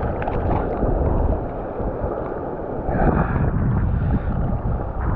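Wind buffeting the microphone over the steady wash of choppy surf around a wader, with a louder rush of water about three seconds in.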